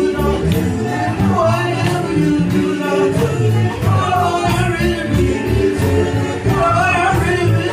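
Gospel music: singing over a band with a steady drum beat.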